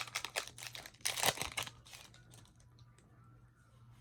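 Foil booster pack wrapper crinkling and trading cards rustling as a pack is torn open and the cards handled. The rustling is densest in the first second and a half, then thins to light scattered handling sounds.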